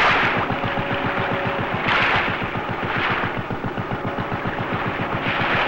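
Fishing boat's inboard engine running with a fast, even low throb, overlaid by swells of rushing hiss from water and spray.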